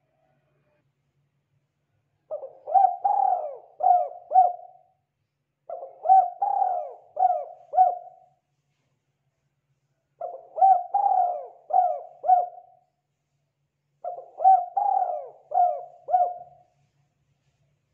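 Spotted dove cooing: four phrases of several quick notes each, a few seconds apart.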